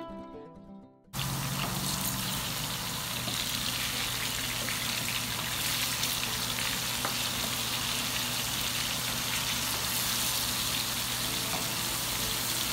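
Pieces of spice-coated mutton sizzling as they shallow-fry in sunflower oil in a frying pan while being stirred with a wooden spatula, over a steady low hum. Guitar music fades out and the sizzle cuts in abruptly about a second in.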